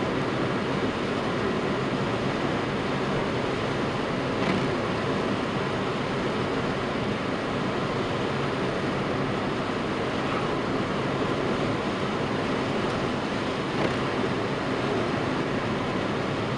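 Steady tyre and engine noise heard inside a car's cabin while cruising on a highway, with a couple of faint brief knocks.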